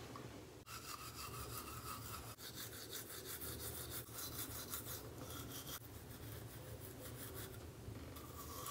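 Manual toothbrush scrubbing teeth with gritty charcoal whitening powder: quick back-and-forth brushing strokes, starting about a second in and going on steadily.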